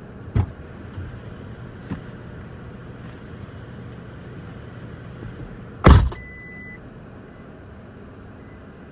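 A steady low vehicle engine hum with a few knocks, then a loud bang about six seconds in, like a car door or panel being shut, followed at once by a short high electronic beep.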